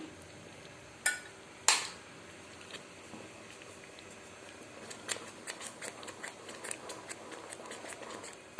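Two sharp metal knocks against a kadai about a second in, then a metal spoon stirring and scraping thick wheat halwa in the pan with many light clicks and taps.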